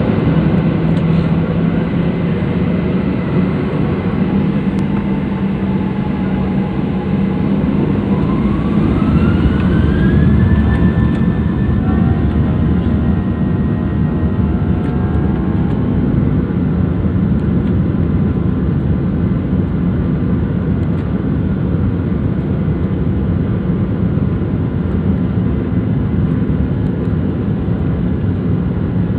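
Jet airliner engines running loudly, with a whine that rises in pitch about a quarter of the way in and then holds steady as the engines spool up to takeoff thrust.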